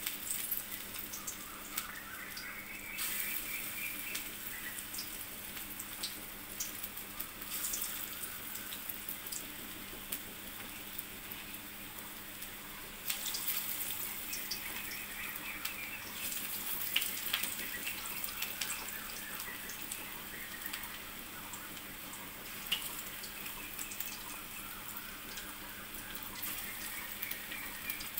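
Masoor dal pakoras deep-frying in hot oil in a karahi: steady sizzling and bubbling with many small crackles. The sizzling gets louder about halfway through.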